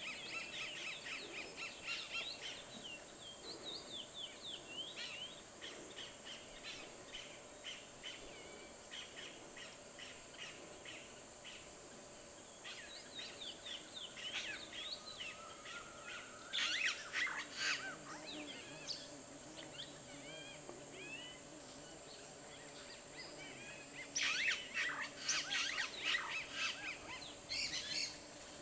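Birds chirping and calling in quick, varied notes, with two louder bursts of calls, about halfway through and again near the end. A steady high-pitched whine runs underneath.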